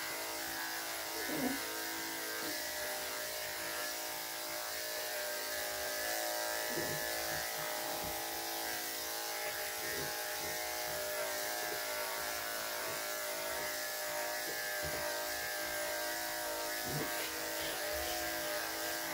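Electric dog grooming clippers fitted with a #5 blade, running with a steady buzz as they shave a small dog's coat.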